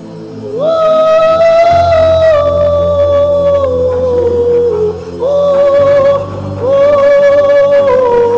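Slow gospel worship music: a lead melody of long held notes, each sliding up at its start, in three phrases over a steady sustained bass.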